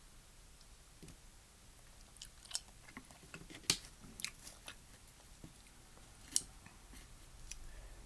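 Someone eating udon noodle soup close to the microphone: quiet chewing with a run of short wet mouth clicks and smacks, two of them sharper and louder than the rest.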